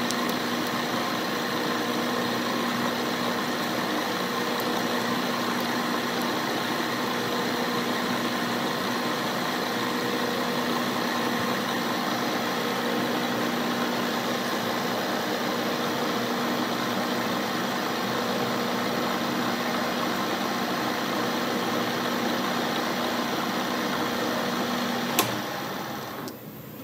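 Metal lathe running steadily, turning 6 mm aluminium round stock: a continuous mechanical hum with a constant low tone. Near the end a sharp click, after which the running sound dies away.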